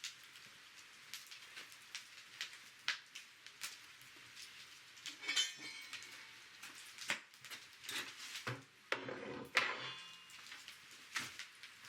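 Wood fire crackling with scattered sharp pops, and metal clinks and clatter from an aluminium mess tin being handled: a ringing clink about halfway through and a longer clattering scrape near the end.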